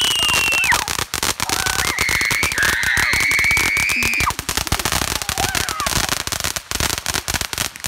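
Ground fountain firework spraying sparks, crackling rapidly and continuously. A high, held shrill tone sounds over the crackle in the first second and again from about two to four seconds in.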